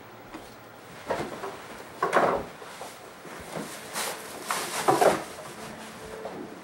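Rustling and soft bumps of people moving against a couch and clothing, four short louder ones with the loudest about two seconds in.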